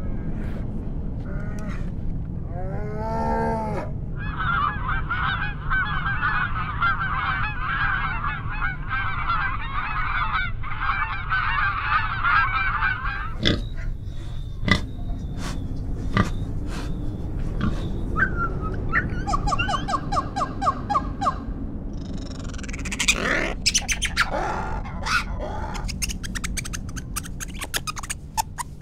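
Calls of several different animals one after another, among them a pig's grunts. A dense high chattering fills the first half, followed by scattered sharp clicks, a quick run of evenly spaced pulses and more short calls near the end.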